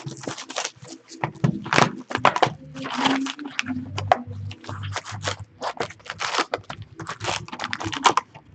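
Clear plastic shrink wrap crinkling and tearing as it is stripped off a hobby box of hockey cards, in a dense, irregular run of crackles, with the cardboard box opened and its packs handled near the end.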